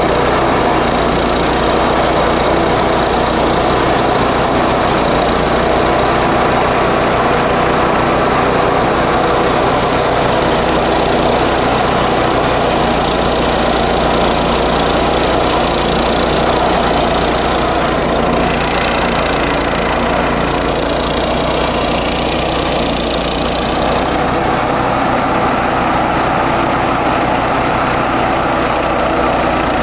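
Small engine-driven rice thresher running steadily, its engine humming at a constant speed.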